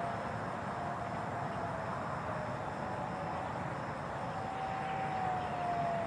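Distant Federal Signal 2001 outdoor warning sirens sounding the Attack signal: a faint wail that slowly rises and falls and fades in and out, over a steady background rumble.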